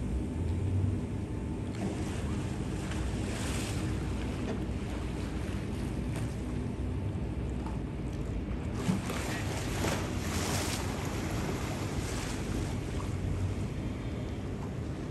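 A steady low engine hum under water wash and wind on the microphone; the rush of water and wind swells a few times, most strongly about nine to eleven seconds in.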